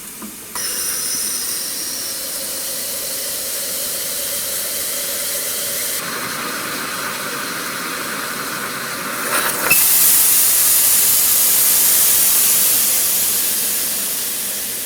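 Fuel injectors on a test bench spraying test fluid into measuring cylinders during a flow comparison test. A steady hiss starts about half a second in, grows louder and brighter about ten seconds in, then slowly fades.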